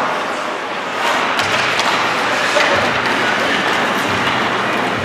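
Steady background din of people in a large hall, with a few sharp knocks.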